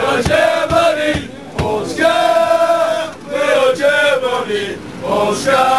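Crowd of Irish football supporters singing a chant together in loud male unison, in long held sung phrases. Through the first second and a half there are rhythmic thumps, about three a second, under the singing.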